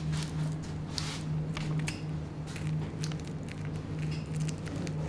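Food being handled during preparation: irregular clicks and soft wet squishing, over a steady low mechanical hum.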